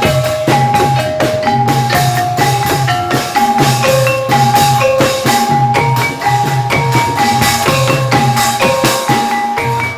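Live Javanese Incling dance music: an ensemble of struck pitched percussion plays a quick, repeating melody over a steady, low rhythmic pulse.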